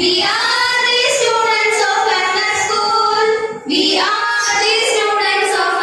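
Young girls singing a welcome song with long held notes, briefly breaking off about three and a half seconds in.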